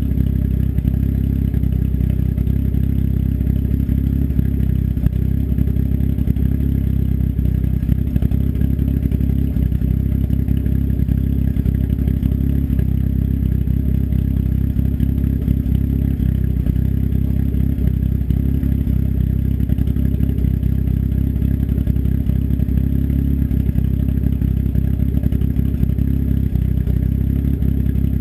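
Turbocharged engine with an S257 turbo and custom cams idling steadily, its exhaust open through a 3-inch turndown dump off the downpipe.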